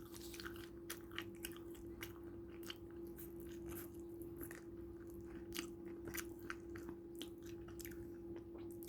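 Faint close-up chewing and crunching of chicken, small irregular crunches, over a steady low hum.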